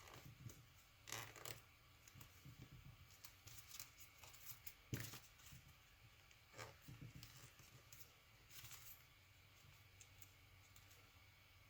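Faint paper rustling and creasing in intermittent short scrapes and crackles, as a sheet of origami paper is folded by hand, with the sharpest crackle about five seconds in.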